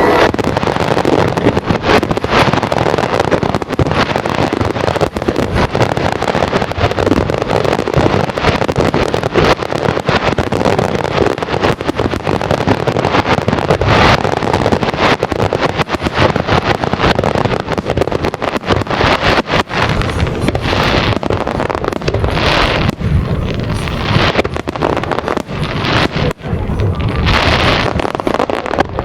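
Fireworks bursting in quick succession: a dense run of sharp bangs and crackles, growing busier and louder about halfway through.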